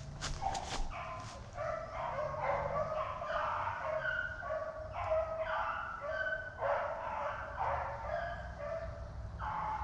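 Pack of beagles baying on a rabbit's trail, their repeated, overlapping cries following one another without a break, the sign that the hounds are running the rabbit by scent.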